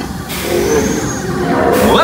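Dark-ride vehicle and show soundtrack: a steady low rumble under a loud hissing rush that sets in just after the start, with music underneath and a rising sweep near the end.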